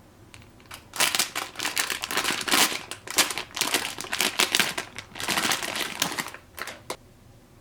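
Plastic packaging crinkling as it is handled, in three bursts over several seconds, followed by a couple of light clicks near the end.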